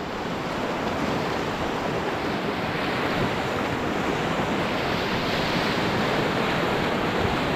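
Whitewater rapids rushing around the canoe, a steady, even wash of churning river current.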